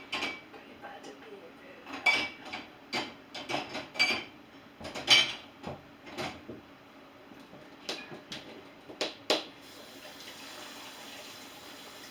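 Dishes and cutlery clinking and knocking as they are loaded into a dishwasher, a dozen or so sharp clatters, some ringing briefly. Near the end the clatter stops and a steady rush of running water begins.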